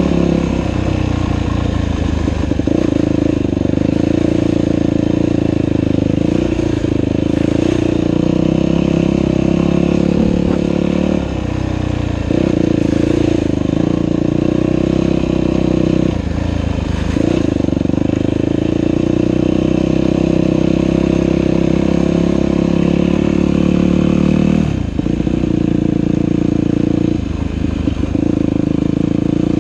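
Dirt bike engine running hard under throttle, its pitch shifting as the rider works the throttle, with a few brief drops off the throttle about eleven, sixteen and twenty-five seconds in before it picks up again.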